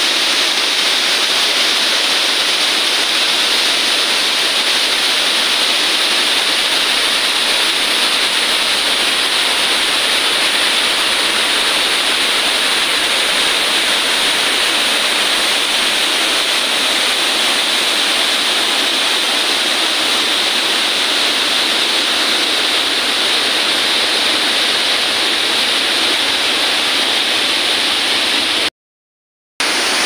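Waterfall pouring over rocks into a pool: a loud, steady rush of falling water, cutting out briefly near the end.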